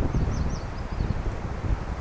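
Wind buffeting the microphone in gusts, with a quick run of about six high chirps in the first second.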